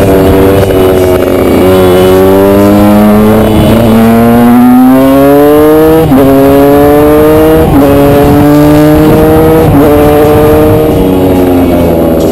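Supermoto motorcycle engine accelerating hard and shifting up through the gears: the pitch climbs, drops at each shift, and climbs again about five times, then falls away as the bike slows near the end.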